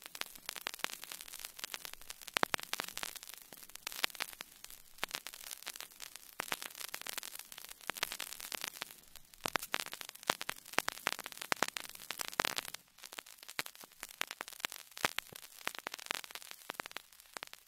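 Crackling static: a steady hiss full of dense, irregular clicks and pops, dipping briefly about 13 seconds in.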